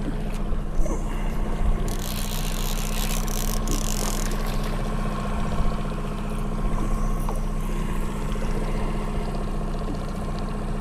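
Fishing boat's motor running steadily at trolling speed. About two to four seconds in there is a burst of splashing as the hooked walleye thrashes at the surface.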